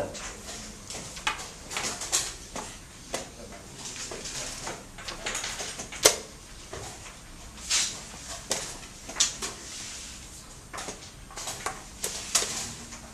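Wooden chess pieces set down on the boards and chess clocks tapped during fast play: irregular sharp clicks and knocks, the loudest about six seconds in.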